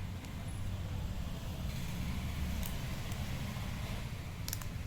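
A few light plastic clicks as a phone is pressed into its snap-on case, over a steady low background rumble.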